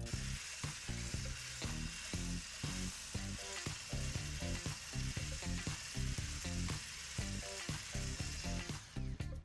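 Food sizzling in a pan, a steady hiss that stops shortly before the end, over background music.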